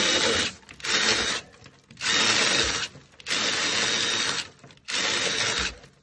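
Cordless drill with a masonry bit boring into the grout line of a compressed earth block wall, run in about five bursts of a second or so each with short pauses between.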